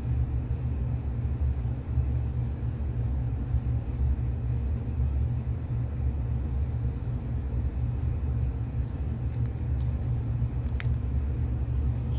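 A steady low rumble from a stove with a covered pot of blended tomato, pepper and onion cooking in hot oil on it. Two faint clicks come near the end.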